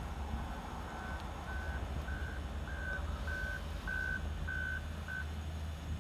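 Reversing alarm on a vehicle beeping at a steady single pitch, about one beep every half second, growing louder and then stopping about five seconds in, over a steady low rumble.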